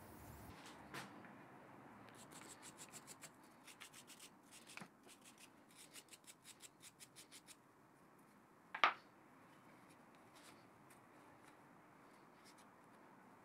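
A small hand brush scrubbing dirt off a small steel bearing block of a lathe's cross-slide screw, in quick short strokes over several bouts, to work loose dirt softened with water displacer. A single sharp knock comes a little over halfway through, followed by faint rubbing as a rag wipes the part.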